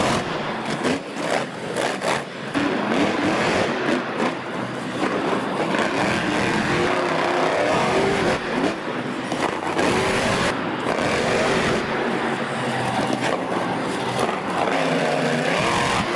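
Monster truck engines revving hard, the pitch climbing and dropping again and again as the trucks launch over and land on crushed cars.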